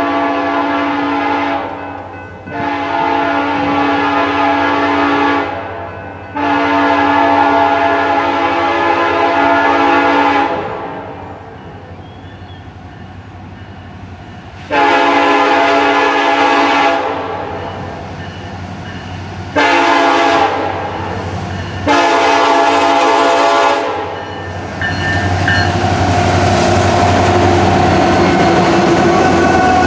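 Diesel locomotive air horn blowing a series of blasts: three long ones in the first ten seconds, then after a pause a long one, a short one and another long one. From about 25 seconds in, the train passes close, with its engine and wheels on the rails running loud.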